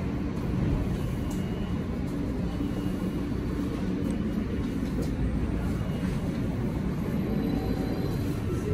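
R160 subway train pulling out of the station and running past along the platform: a steady rumble of wheels and running gear.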